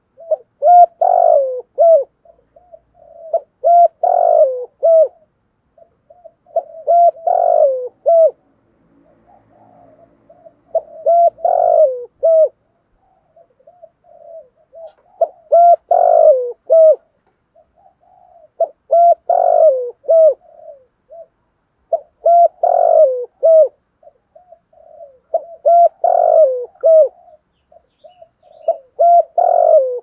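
Spotted dove cooing: the same multi-note coo phrase repeated about every three and a half seconds, nine times in all.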